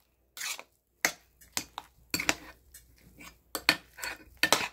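Kitchen utensil knocking and scraping against a pot or bowl in an irregular string of sharp clinks, the loudest cluster near the end.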